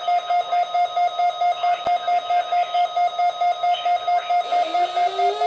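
Electronic alert alarm, most likely a weather radio receiver's alarm, beeping rapidly at one pitch, about four beeps a second, with a single click about two seconds in. A tone rising in pitch comes in near the end.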